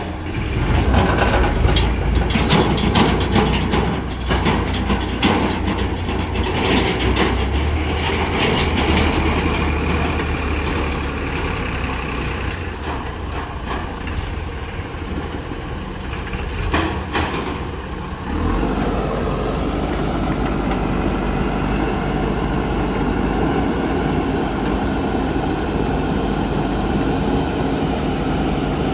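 Heavy diesel engines of a backhoe loader and tractor running during soil loading, with a run of rattling and clanking for the first several seconds and again about seventeen seconds in, then steady running.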